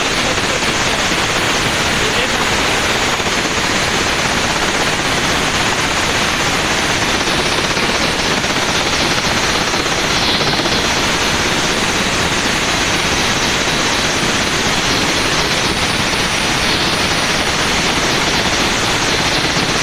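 Helicopter running, a steady loud rushing noise that holds unchanged throughout.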